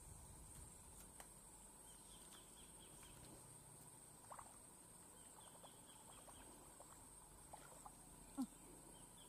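Near silence with faint outdoor ambience: a steady high-pitched whine, faint distant bird chirps in short runs, a few soft clicks, and one short low blip near the end.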